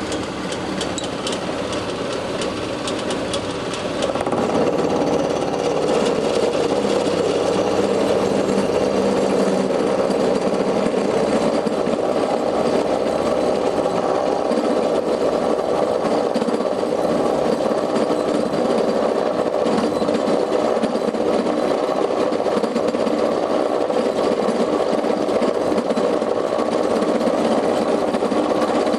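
Homemade milling machine driven by a treadmill motor running steadily, with its spindle turning. It gets louder about four seconds in, then holds steady.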